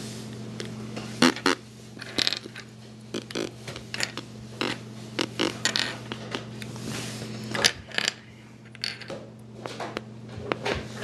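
Loose plastic puzzle-cube pieces clicking and rattling against each other as they are sorted through by hand, in irregular short clatters over a steady low hum.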